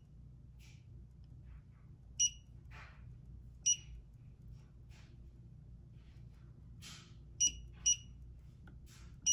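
Five short, high electronic beeps at uneven intervals, one with each button press as the settings of a light are stepped through, with faint rustling between them.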